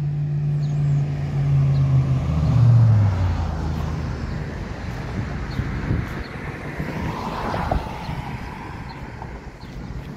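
Cars driving past on a street. A low engine hum drops in pitch as one vehicle goes by close, loudest about three seconds in, and a second car's tyre noise swells and fades near the two-thirds mark.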